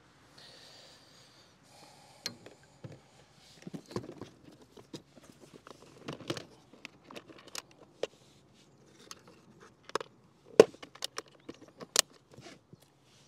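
Fishing tackle handled aboard a kayak while a new soft-plastic bait is rigged: a brief plastic rustle, then an irregular run of sharp clicks, knocks and scrapes, the loudest about ten and a half and twelve seconds in.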